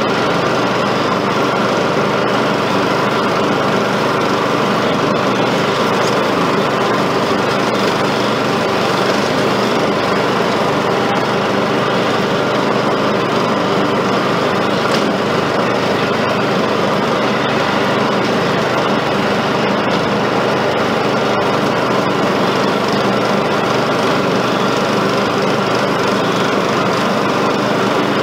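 Riding mower's small engine running steadily under load while cutting through overgrown grass and weeds.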